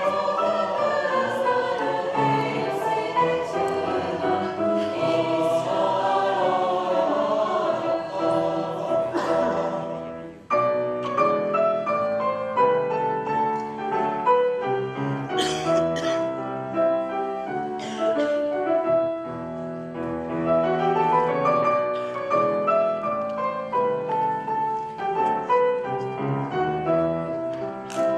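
Mixed choir singing a Rumelian Turkish folk song arrangement with piano accompaniment; about ten seconds in the choir falls away and the piano carries on alone with a clear, note-by-note line.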